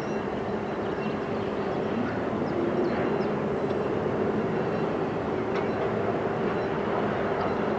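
Harbour portal crane squealing as it unloads a ship: short high metal-on-metal squeaks come and go over a steady low mechanical drone.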